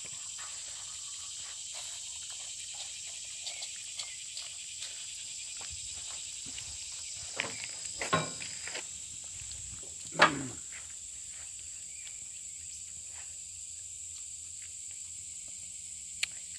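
Steady high-pitched insect buzzing throughout, with a few short knocks in the middle, the loudest about ten seconds in.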